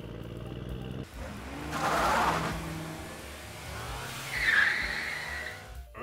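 Cartoon-style car sound effect laid over the toy play: an engine running, with a rush of noise about two seconds in and a tyre squeal near four and a half seconds.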